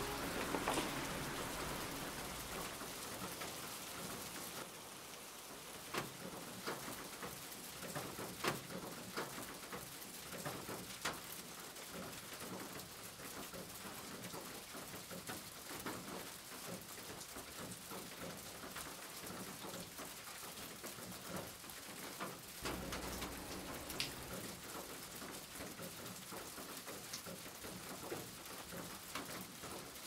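Steady rain falling, an even hiss with occasional sharp ticks of single drops.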